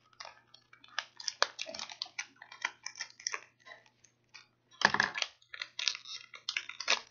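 Foil blind bag crinkling and crackling as it is handled and torn open by hand, with a louder crackle about five seconds in.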